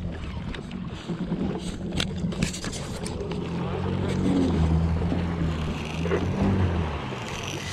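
Jet ski engines running at low speed, a steady low hum that swells for a couple of seconds midway, over the wash of water and wind, with a few sharp clicks.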